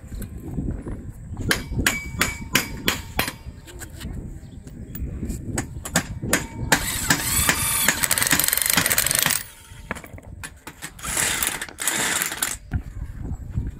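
Corded electric drill run at speed into a solar-panel mounting bracket on a concrete roof, twice: a longer run of about two and a half seconds, then a shorter one. Before it comes a quick series of sharp knocks.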